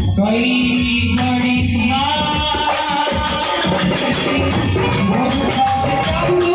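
A man singing a Bhojpuri Ganesh bhajan live into a microphone, backed by an electronic keyboard and percussion keeping a quick, steady beat.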